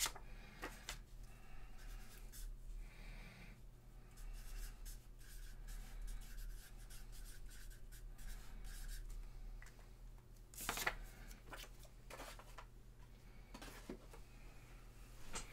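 Faint scratching and rustling of hands handling trading-card packaging, with one louder rustle about eleven seconds in, over a steady low electrical hum.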